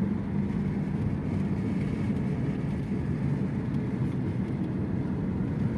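Steady low rumble of a car driving along a city street, heard from inside the cabin: engine and tyre noise.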